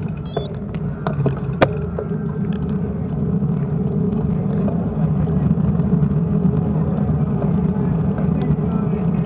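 Wind and road rumble on a bicycle-mounted camera while riding: a steady low rush that grows a little louder about three seconds in, with a few sharp clicks in the first two seconds.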